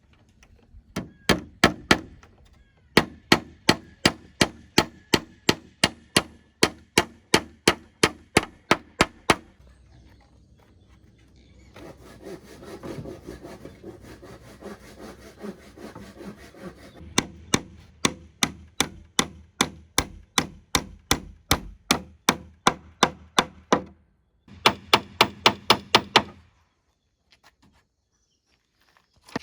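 Wood being worked by hand: sharp, regular strokes at about three a second in runs of several seconds, with pauses between. A steadier rubbing noise fills a stretch in the middle.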